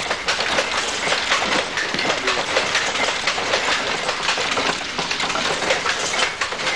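Power loom weaving tweed cloth: a loud, steady clatter of rapid mechanical clicks and knocks.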